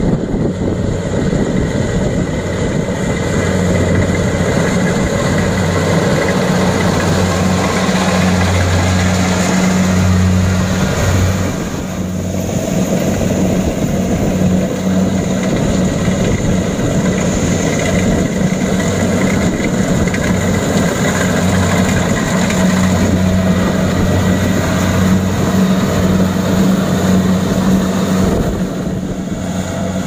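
Kubota DC-70 Plus rice combine harvesters running while harvesting, a steady, loud engine-and-machinery drone with a low hum. The level dips briefly about twelve seconds in, then the same drone goes on.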